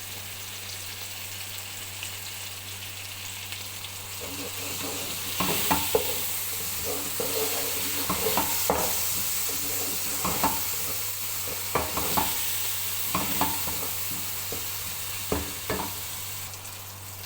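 A pan of onions, tomatoes, garlic and capsicum sizzling as it fries. From about five seconds in, a spoon knocks and scrapes irregularly against the pan as the mixture is stirred, and the sizzle gets louder.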